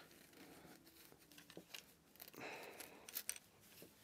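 Faint rustling and handling noise as a furry 'dead cat' windscreen is worked over the foam cover and body of an Opteka VM-100 shotgun microphone, with a few small clicks and a slightly louder stretch of rubbing a little past the middle.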